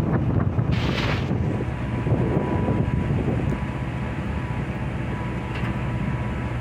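Steady low rumble of a fishing boat's engine under way, with wind on the microphone. A short hiss comes about a second in, and a thin steady tone runs from then on.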